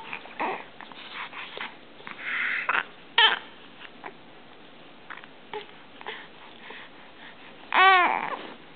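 Young infant making small vocal sounds: a breathy snuffle about two seconds in, a brief squeak just after three seconds, and a louder pitched coo near the end.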